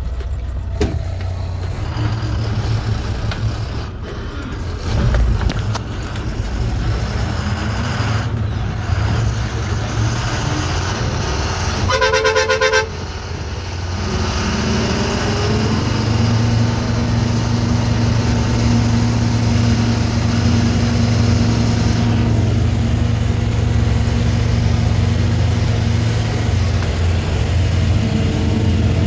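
Heavy truck's engine running, heard from inside the cab on a rough dirt track, with its horn sounded for about a second around twelve seconds in. From about fourteen seconds the engine note steadies and grows louder.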